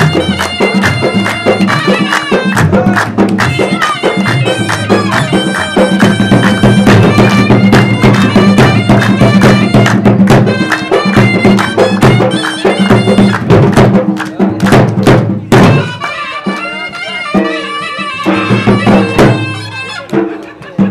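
Pashtun Attan dance music: a reed wind instrument plays a fast folk melody over a steady drone, driven by dhol drum strokes. About fifteen seconds in the melody thins out and the drum beats stand out more.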